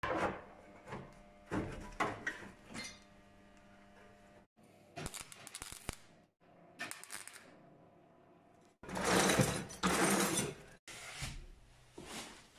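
Car body repair sounds in short clips cut together: knocks and handling of body panels, then the fine crackle of a welder, a loud burst of noise about nine seconds in, and a filler spreader scraping across a door panel near the end.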